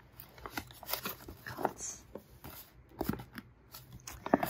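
Sheets of paper rustling as a hand handles them and lifts the stack out of a fabric backpack, with a run of crisp rustles and small taps and one sharp tap near the end.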